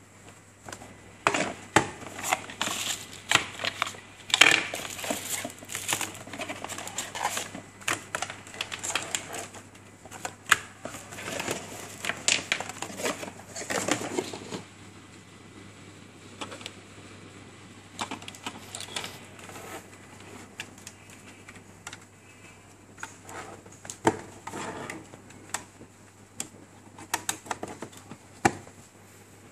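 Handling noise of unpacking: cardboard box, packaging and accessories rustling and knocking on a desk, a dense run of clicks and rustles for about the first fifteen seconds, then scattered knocks and clicks as cables are plugged into the TV box.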